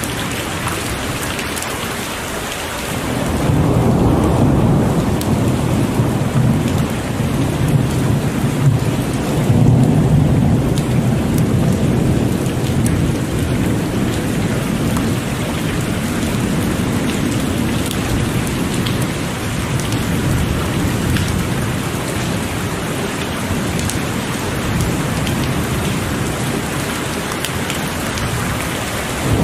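Heavy rain falling steadily, with a long rolling rumble of thunder that builds about three seconds in and slowly fades over the following seconds.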